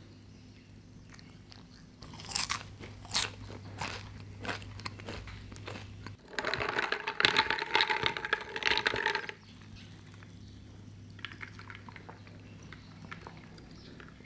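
Crispy french fry crunching as it is bitten, several sharp crunches about two to four seconds in. Later comes about three seconds of loud, dense rattling and fizzing from a straw worked in a glass of iced cola.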